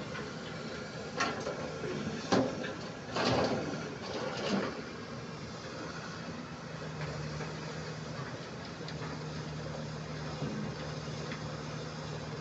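Excavator's diesel engine running steadily, with a few sharp metallic knocks and a short rush of noise in the first few seconds, the loudest knock about two seconds in.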